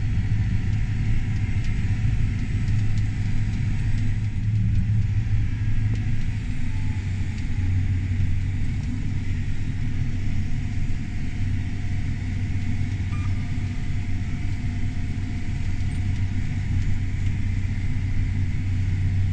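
Tractor engine running steadily with a deep, even drone, pulling a disc tillage tool.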